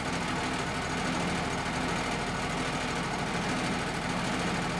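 Wood-Mizer LT35 sawmill's engine running at a steady speed, an even mechanical drone with no change in pitch.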